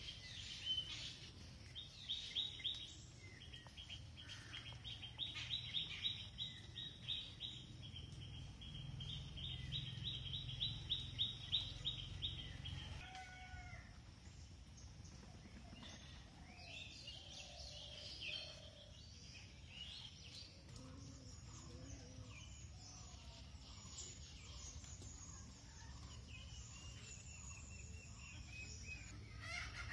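Birds calling: a rapid run of repeated high chirps lasts for about the first twelve seconds, then gives way to scattered chirps and short calls. A low, steady background rumble runs underneath.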